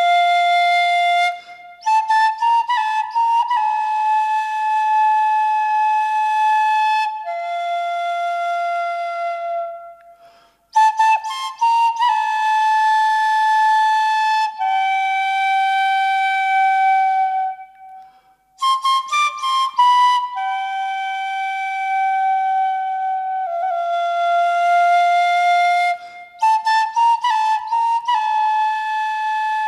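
Solo Indian bansuri bamboo flute playing a Moravian folk melody unaccompanied: long held notes joined by quick ornamental flourishes, with two short breath pauses, about a third and two-thirds of the way through.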